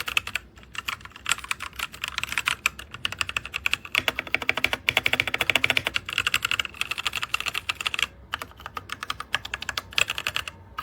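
Fast, continuous typing on a DIERYA T68SE 60% mechanical keyboard with red switches: rapid clacking keystrokes with a few brief pauses.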